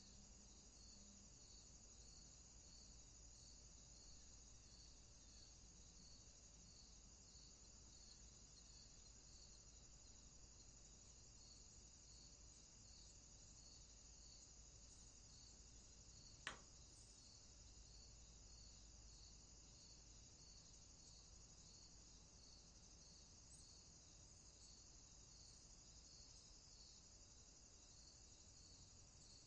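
Faint insects, crickets, chirring steadily in a high, even drone with a regular pulse running through it. A single sharp click about halfway through.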